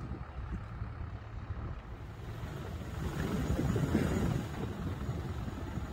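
Low steady rumble of vehicle traffic with wind noise, swelling for a second or so about three seconds in.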